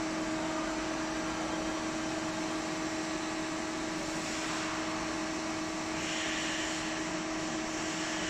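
PWS-100 fatigue testing machine running a fatigue test: a steady mechanical hum with a clear held tone. A higher hiss comes and goes in the second half.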